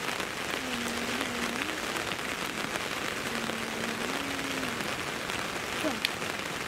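Steady rain falling, an even hiss of drops that does not let up.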